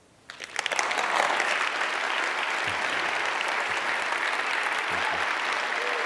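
Audience applauding, starting about half a second in and quickly building to steady clapping.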